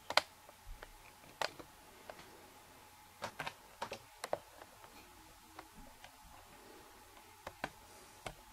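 Scattered sharp clicks and taps at an uneven pace, the loudest just after the start, over a faint steady hum.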